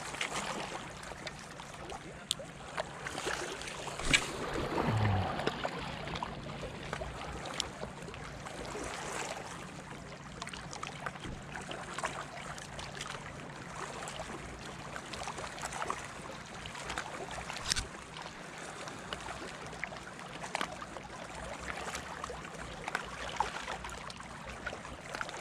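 Small waves lapping and trickling against rounded shoreline rocks at the water's edge, with many small scattered splashes and clicks. A short sound falling in pitch comes about five seconds in.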